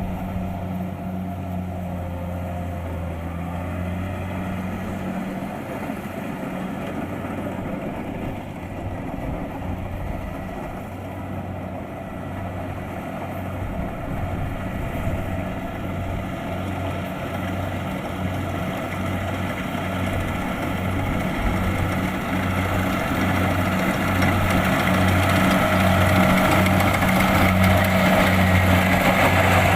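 Kubota DC-70 Plus combine harvester's diesel engine running steadily with a low pulsing throb, growing louder over the last several seconds.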